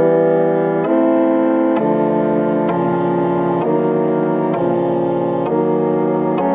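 Background music: sustained keyboard chords changing about once a second.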